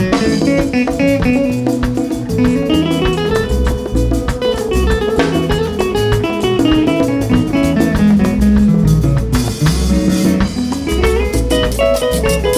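Congolese soukous band playing an instrumental guitar passage: fast picked electric guitar lines over bass guitar and drum kit at a steady dance beat.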